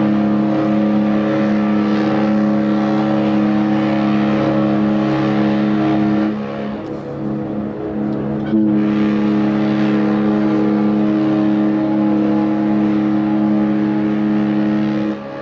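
Cruise ship horn sounding two long, steady blasts of about seven seconds each, with a gap of about two seconds between them. The first blast stops about six seconds in and the second stops just before the end.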